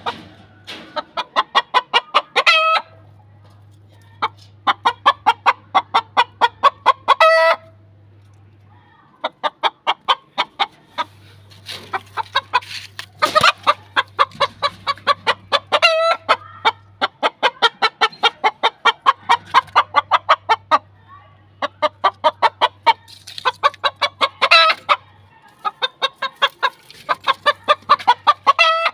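White Aseel rooster clucking in rapid runs of about seven or eight clucks a second, each run lasting about two seconds and ending on a louder call; the runs repeat every few seconds.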